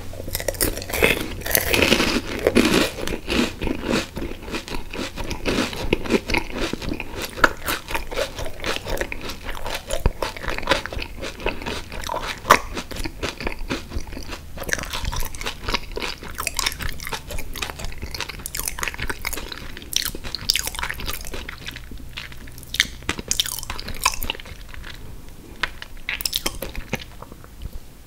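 Close-miked chewing of a mouthful of wafer ice cream cone: dense crunching and mouth sounds that thin out over the last few seconds.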